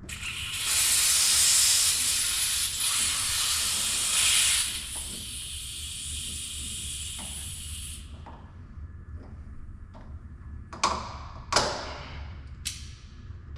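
Compressed air hissing out of an air-line water separator's drain petcock as it is blown down to drain water. The hiss is loud for about four seconds, then weaker, and stops about eight seconds in. Three short sharp clicks follow near the end.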